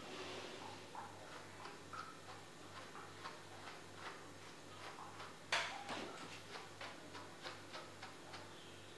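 Faint ticking and light clicks over a soft low pulse that repeats about two to three times a second, with one sharper click about halfway through.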